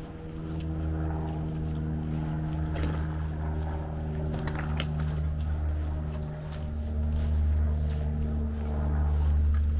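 An engine running steadily at idle, giving a low, even hum with overtones that gets a little louder in the second half. A few short clicks sound over it.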